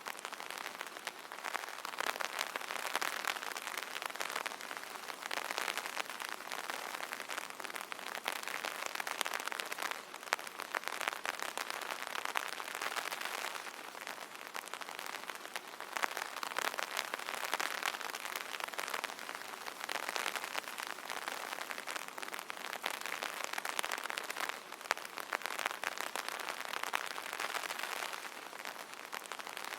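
Steady rain pattering on an umbrella canopy: a dense patter of drops that swells and eases every few seconds.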